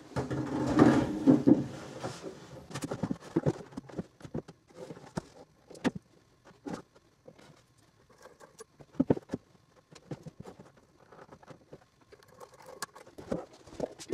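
Handling noise as a wooden bookcase is lifted, shifted and held against a wall: a burst of rustling and bumping in the first two seconds, then scattered light knocks and taps.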